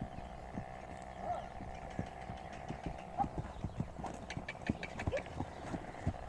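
Horse's hooves clip-clopping in an irregular walking rhythm, over a faint steady hum.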